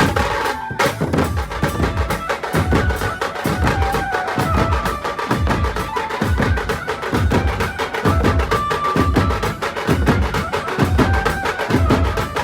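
Loud percussive music: a steady deep bass beat with fast, dense drum strokes on top and short melodic notes over it.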